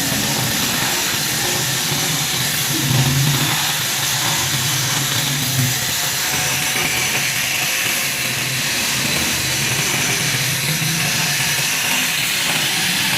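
Steady hissing noise over a low hum, unbroken throughout.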